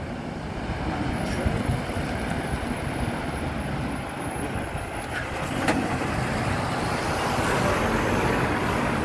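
Articulated truck driving past close by: the diesel engine runs at a steady low rumble, and the tyre and road noise swells near the end as the trailer goes by. A single sharp click comes a little over halfway through.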